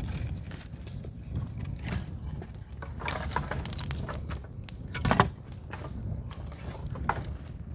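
Wood fire in a dug-in ground fire pit crackling with scattered sharp pops, along with knocks of wood as sticks are added. There is one louder knock about five seconds in.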